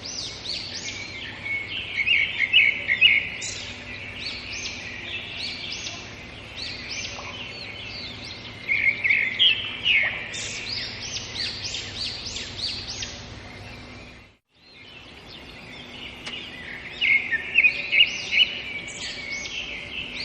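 Several songbirds chirping and singing together: many short high chirps and whistles, with louder rapid trills in three bursts. The whole chorus cuts out briefly about fourteen seconds in, then resumes.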